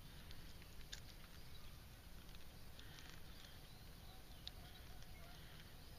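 Near silence: a faint steady low rumble with a few soft clicks.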